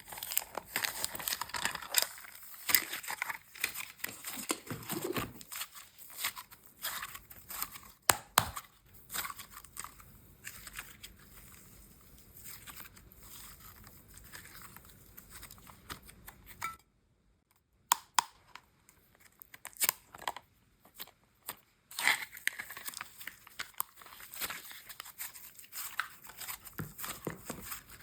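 Slime and clay being worked by hand close to the microphone: irregular crinkling, tearing and sticky clicking noises, with a brief silence about seventeen seconds in.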